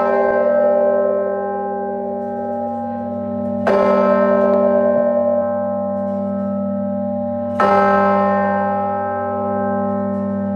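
A large carillon bell in Sather Tower tolling slowly, struck three times about four seconds apart. Each stroke rings on and fades slowly over a deep hum until the next.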